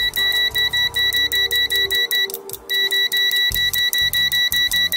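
ANENG AN8002 digital multimeter's continuity beeper sounding in rapid, evenly spaced high beeps, about five a second, as the test leads make contact, with a short break a little past halfway. Background music plays underneath.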